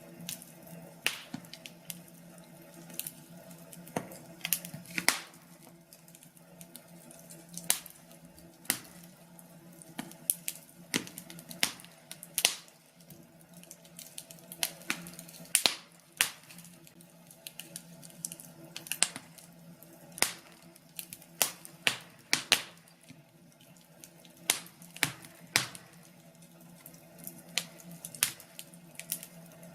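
Wood fire crackling, with irregular sharp pops and snaps over a low steady hum.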